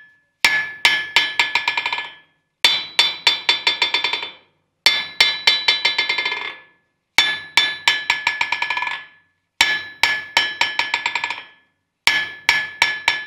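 Ball peen hammer dropped onto a repaired anvil face in a rebound test, six times. Each drop rings with a loud first strike, then a quick run of smaller, fainter bounces. The hammer bouncing steadily, not jumping from side to side, shows the welded and ground face is getting truer.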